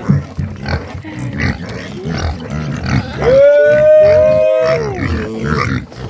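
Hungry pigs grunting, then a loud, drawn-out squeal about three seconds in that lasts about a second and a half.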